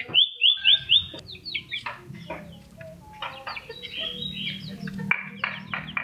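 Common iora (cipoh) chattering: rapid runs of short, sharp high notes, opening with a quick series of slurred notes.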